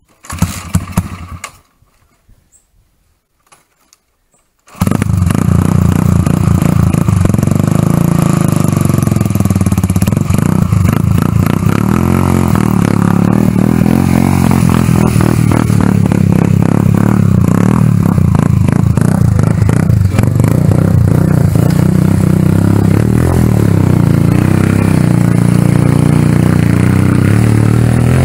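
Small motorcycle engine. A short burst of engine sound comes about half a second in, then it goes quiet; about five seconds in the engine cuts in loud and close and keeps running steadily.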